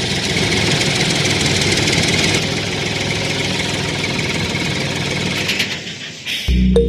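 A small engine or motor running steadily, fading out about six seconds in as background music begins.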